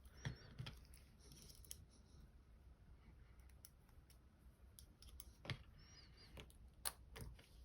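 Faint, scattered metal clicks and small scrapes of a gut wrench working at a lock cylinder's retaining C-clip. There are a few isolated ticks: a pair near the start and a few more in the second half.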